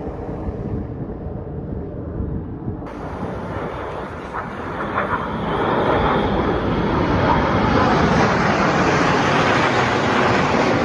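Jet aircraft flying over, its engine noise growing louder about halfway through and staying loud.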